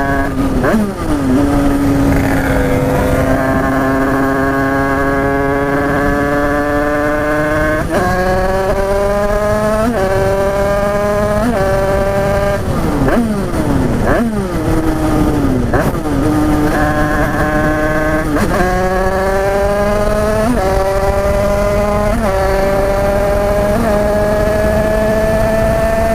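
Tuned Derbi two-stroke dirt bike engine under hard acceleration. It climbs in pitch and drops sharply at each gear change, over and over, with a brief let-off in the middle before it pulls up through the gears again.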